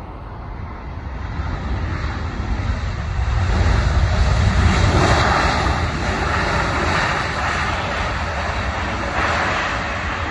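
Boeing 787 jet engines roaring as the airliner rolls out on the runway just after touchdown, the noise building to a peak about four to five seconds in and then easing slightly.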